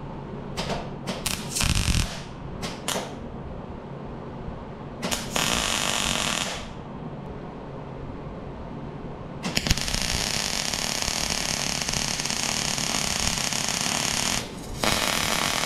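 Wire-feed welder arcing: several short crackling bursts in the first three seconds and one more about five seconds in, then a steady crackling weld from about nine and a half seconds, broken briefly near the end.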